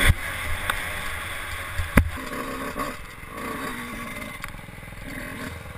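Yamaha YZ125 two-stroke dirt bike engine running under a wash of wind and rolling noise, with two sharp knocks near the start and about two seconds in. After that the engine eases off and runs quieter as the bike slows.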